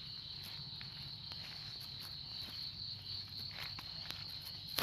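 Insects trilling in a steady, high-pitched drone, with faint rustling footsteps along a brushy path and one sharp click at the very end.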